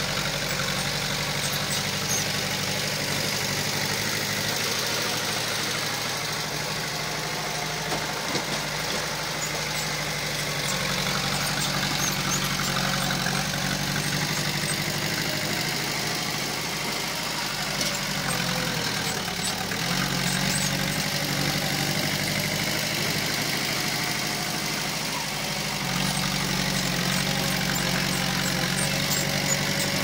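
Heavy-equipment diesel engine running steadily. Its pitch dips and recovers a little past halfway, and it runs slightly louder in the last few seconds.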